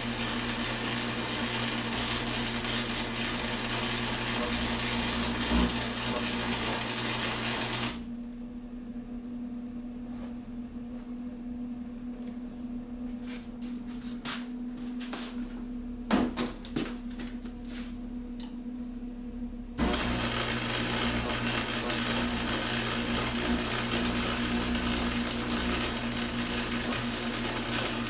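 Electric arc welding on metal, a steady buzzing crackle that stops about eight seconds in. A quieter stretch of about twelve seconds follows with a few sharp knocks and clicks, then the welding buzz starts again about twenty seconds in and carries on.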